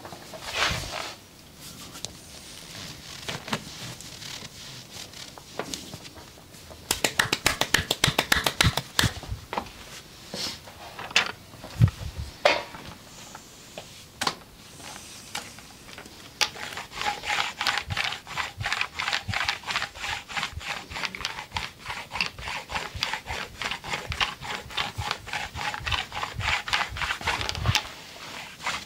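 Hands working over a body in a brisk massage: a quick run of rapid taps, a few single knocks, then steady rhythmic rubbing strokes at about four or five a second.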